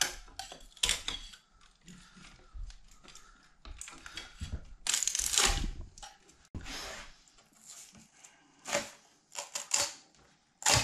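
PLA 3D prints being pried off printer build plates with a metal scraper, with a flexible build sheet bent to pop a print free: irregular scrapes and sharp cracks as the parts release, with a longer scrape about five seconds in.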